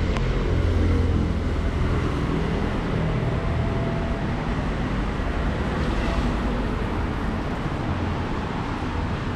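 City street traffic: motor vehicles running and passing on a busy street, a steady low engine rumble with road noise, loudest about a second in.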